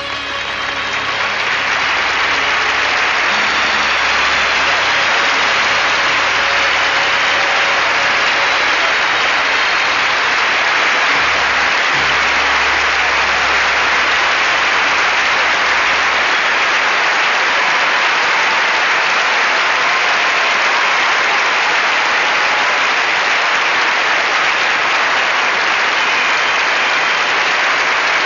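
Large arena crowd applauding, the clapping swelling over the first two seconds as the music dies away and then holding steady.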